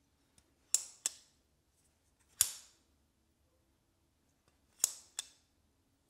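Sencut Serene folding knife being flipped open and shut: sharp metallic snaps of the blade and lock, a pair about a second in, one loud snap in the middle, and another pair near the end.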